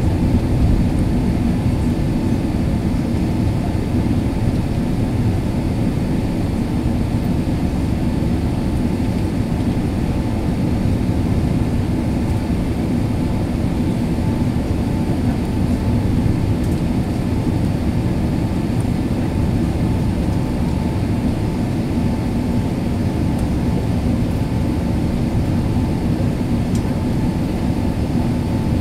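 Steady cabin noise of an Airbus A380 climbing after takeoff: its jet engines and the rush of air heard from inside, a deep even rumble with a faint steady hum.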